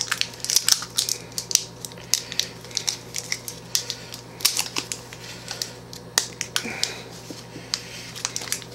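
Plastic tub of strawberry glaze being worked open by hand: irregular clicks and crackles of the plastic lid and seal being pried and peeled. A faint steady hum runs underneath.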